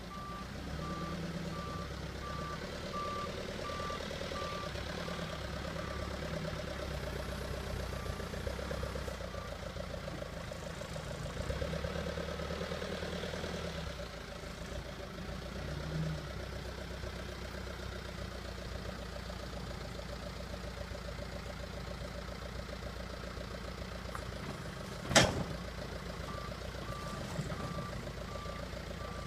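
Backhoe's diesel engine running steadily, its reversing alarm beeping in an even series through the first third and again near the end. One sharp knock sounds late on.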